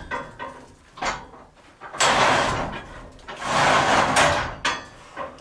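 A heavy drawer being slid out and pushed back, with two long scrapes, one about two seconds in and one near four seconds, and a few shorter knocks between them.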